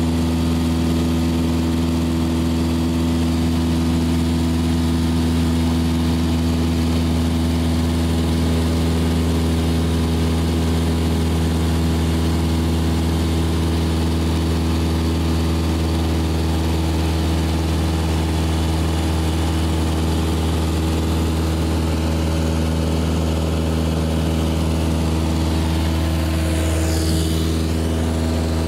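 A Cessna's single piston engine and propeller droning steadily in flight, heard from inside the cabin, with an unchanging pitch. Near the end a short high sweeping sound passes over it.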